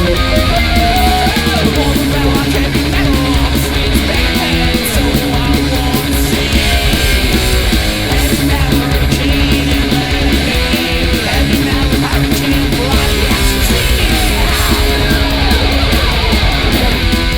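Speed/thrash metal band recording playing loud and steady: distorted electric guitars driving over bass and fast drums.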